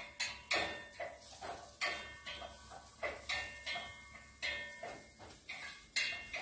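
Wooden spoon scraping and knocking against a pot while sautéing chopped onion in oil, in a quick, uneven run of strokes about three a second, some with a short metallic ring.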